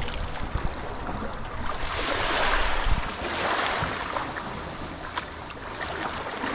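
Waves breaking and washing up a sandy beach, the surf swelling about halfway through, with wind rumbling on the microphone.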